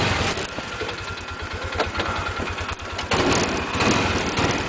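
Polaris Ranger UTV engine running with a low, even pulsing beat, getting louder about three seconds in as it works up a near-vertical creek bank.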